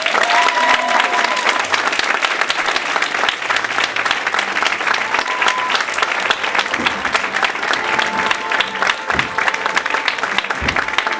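Theatre audience applauding: many hands clapping steadily, with music playing faintly underneath.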